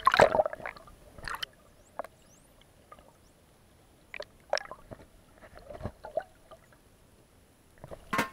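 Water heard through a submerged camera: scattered clicks, knocks and bubbly gurgles of water moving. The loudest is a burst of bubbly noise right at the start.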